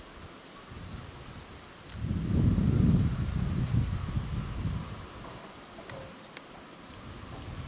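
Steady high-pitched chirring of insects in the grass. About two seconds in, a low rumble swells up, the loudest sound here, and fades out by about five seconds.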